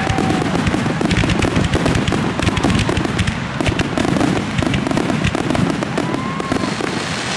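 Aerial fireworks finale: many shells bursting in rapid, nearly unbroken succession, a dense barrage of bangs and crackles over a continuous low rumble.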